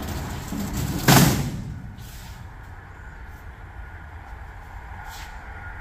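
A single loud clank about a second in as the bent aluminum square tube is handled against the pontoon side panel, ringing briefly, followed by a low steady hum.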